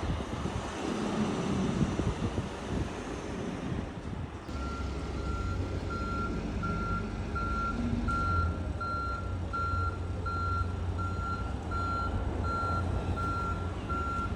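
A heavy machine's engine rumbles. About four and a half seconds in, its reversing alarm starts beeping steadily, roughly three beeps every two seconds, over a steady low engine drone.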